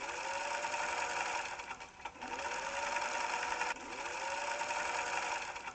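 Electric sewing machine stitching in several short runs, the motor speeding up and rising in pitch at the start of each run before holding steady.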